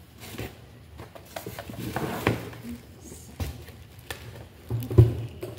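Cardboard box and plastic packaging rustling and scraping as a blender's motor base is lifted out of its box, with scattered clicks and a single low thump about five seconds in.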